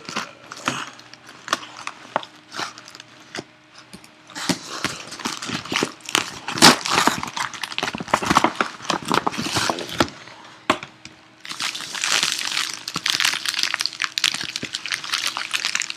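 Crinkling, scratching and clicking of the plastic wrapping and cardboard of a sealed trading-card box as it is picked at and worked open by hand, in irregular bursts, with a busier stretch of rustling near the end.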